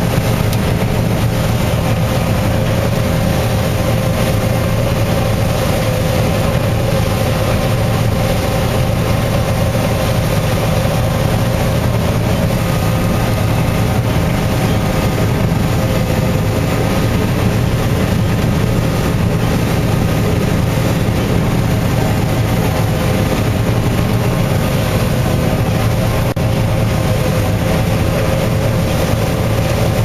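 John Deere 9610 combine harvesting soybeans, heard from inside the cab: engine and threshing machinery running steadily under load, a constant low drone with a steady mid-pitched tone above it.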